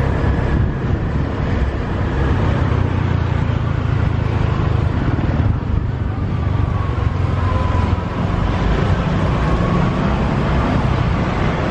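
Motorbike taxi running steadily at riding speed through street traffic, heard from the moving bike with road noise, a baht bus pickup close ahead.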